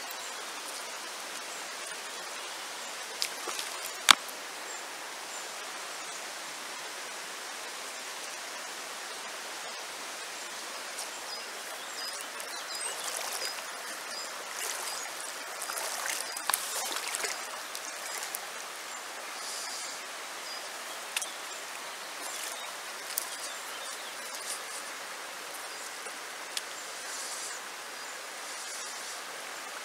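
Shallow river water flowing over stones, a steady rush. A single sharp click about four seconds in, with a few smaller ticks and faint high chirps later.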